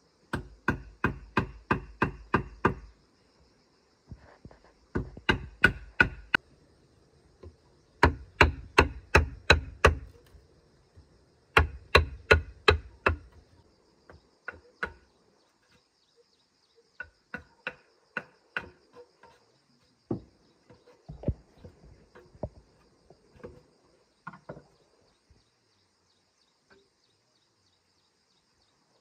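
A machete chopping into a wooden plank in quick strokes of about three to four a second, in four bursts of a few seconds each, then lighter, scattered chops in the second half. A steady, high insect drone underneath.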